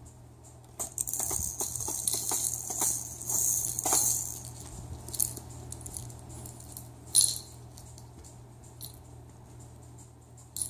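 Small plastic rattle toy handled by a pet raccoon: dense, rapid rattling for about three seconds, then scattered clicks and one sharp knock about seven seconds in.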